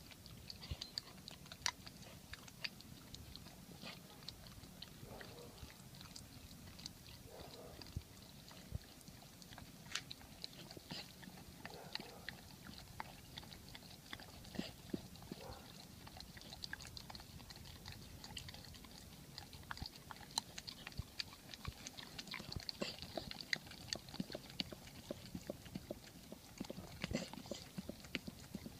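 A golden retriever licking and smacking its way through sticky peanut butter, giving a stream of irregular wet mouth clicks and smacks that come thicker near the end.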